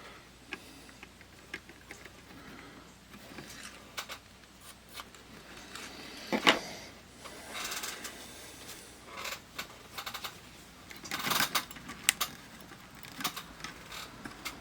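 Small tools and parts handled on a workbench: scattered clicks, taps and light clatter, with a sharper knock about six and a half seconds in and a brief run of rattling around eleven to twelve seconds in.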